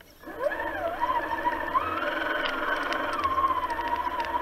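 Traxxas Summit RC truck's electric motor whining as it starts to drive: the pitch climbs steeply as it throttles up, then wavers up and down with the throttle, with faint rapid clicking in the second half.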